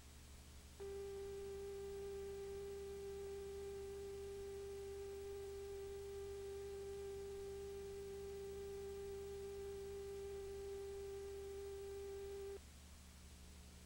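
A steady, unwavering test tone with a few faint overtones starts about a second in, holds for about twelve seconds and cuts off abruptly. It is the reference tone laid down with the videotape's slate at a reel break. A low electrical hum runs underneath throughout.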